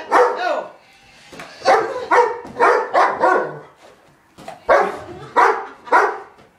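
Dog barking at a balloon in play, about a dozen sharp barks in three bursts with short pauses between them.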